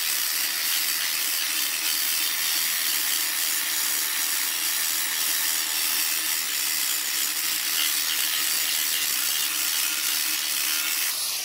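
Angle grinder running steadily under load, its disc grinding against a steel plate to bare metal to prepare the surface for welding. The grinding stops shortly before the end.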